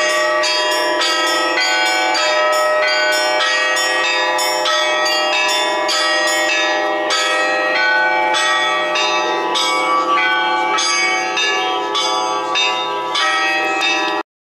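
Russian Orthodox church bells ringing continuously in a dense peal: quick strikes on the smaller bells about three a second over the sustained ring of the larger ones. The ringing cuts off abruptly near the end.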